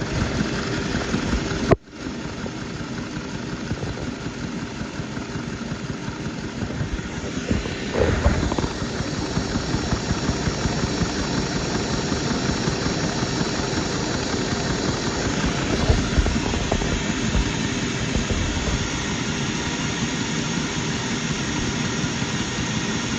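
Single-cylinder, single-overhead-cam Lego vacuum engine with a 3D-printed cylinder head running steadily, with a brief break about two seconds in.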